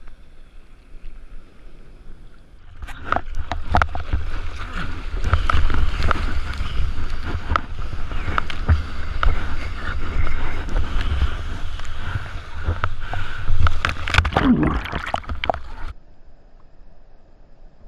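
Sea water splashing and sloshing around a GoPro camera in the surf, with heavy rumble and many sharp knocks. It starts about three seconds in and cuts off suddenly a couple of seconds before the end.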